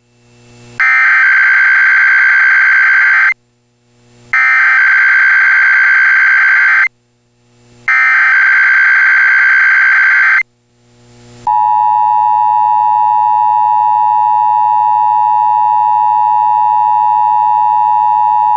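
Emergency Alert System alert tones: three bursts of SAME header data, each a harsh digital screech about two and a half seconds long with a faint hiss rising in the gaps. About eleven seconds in, the steady two-tone EAS attention signal begins and holds. This opens a Required Weekly Test.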